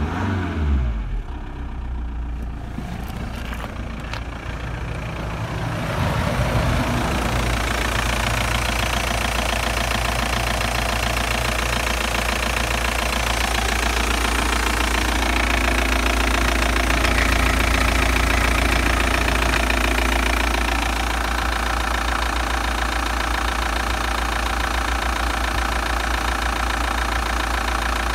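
Audi 80 B4's 1.9 TDI (1Z) four-cylinder turbodiesel idling steadily. Its revs fall back to idle in the first second or so, and the engine sound grows louder about six seconds in.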